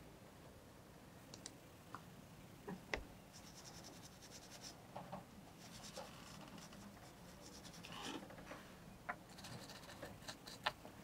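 Faint clicking and light scraping of small circuit-breaker parts handled by hand, with two sharper ticks, one about three seconds in and one near the end.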